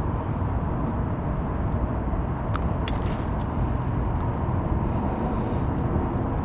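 Steady low rumble of outdoor background noise, with a few faint sharp clicks about two and a half to three seconds in.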